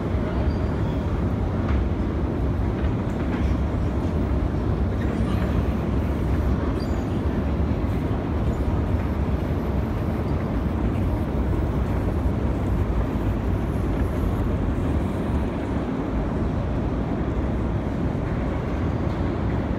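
Metro escalators running: a steady low rumble of their machinery that does not change from the ride up through the top landing.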